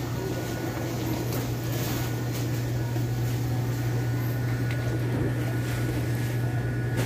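Supermarket background: a steady low machine hum under faint store noise, with a few light ticks.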